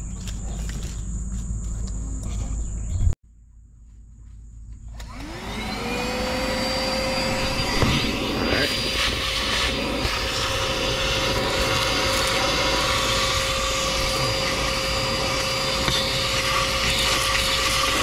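Chemical Guys DetailVac corded handheld vacuum cleaner, fitted with a long crevice nozzle, switched on about five seconds in. Its motor whine rises in pitch as it spins up, then runs steadily while the nozzle sucks along a car's floor.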